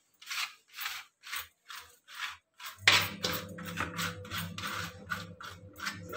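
Knife blade spreading ketchup over a roti, short scraping strokes about two or three a second. From about three seconds in, a steady low hum joins underneath.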